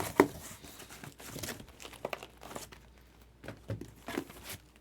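Plastic wrapping on trading card boxes crinkling and tearing as it is pulled open, in irregular rustles with a sharp snap just after the start.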